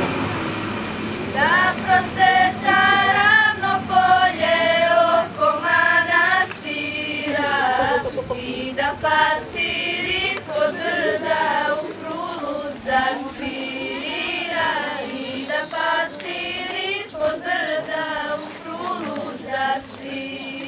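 A group of schoolgirls singing a Serbian song together, unaccompanied, with the notes held and gliding.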